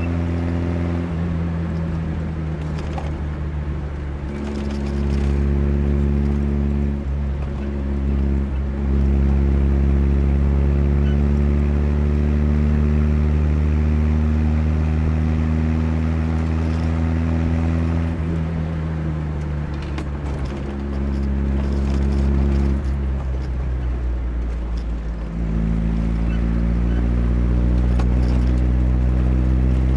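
1982 Chevrolet Chevette's freshly rebuilt 1.4-litre eight-valve four-cylinder engine running while driving. Its pitch climbs in steps over the first ten seconds, eases down slowly, then drops briefly and picks up again near the end.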